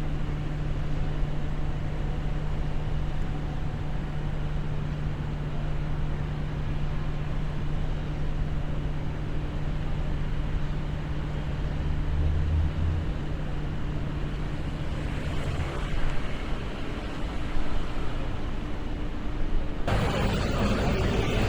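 Night city street ambience: a steady low mechanical hum over distant traffic noise. About twenty seconds in, it switches abruptly to louder, busier street noise.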